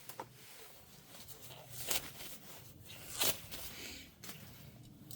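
Quiet handling of small parts as things are put back together, with two short, sharp clicks about two seconds and three seconds in.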